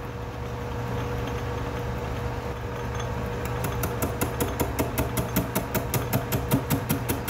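Atlas metal lathe running with a large disc blank spinning in the chuck, giving a steady motor hum. From about halfway, a regular ticking of about four to five a second sets in.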